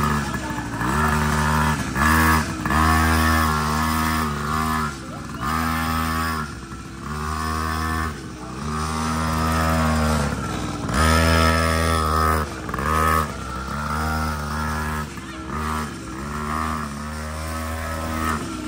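Two-stroke engine of a small pocket bike (mini racing motorcycle) being ridden, revving up and falling back again and again as the throttle is opened and closed every second or two.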